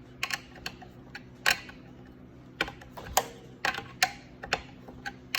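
A wrench and metal fittings clicking and tapping at irregular intervals as a compression tube fitting is tightened. Around a dozen sharp clicks, with a faint steady hum under them.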